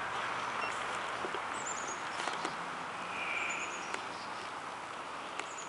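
Outdoor ambience in a grassy creek bottom: a steady hiss with several short runs of high, quick chirping bird notes, each falling slightly in pitch, and a few light rustles and clicks of movement through the grass.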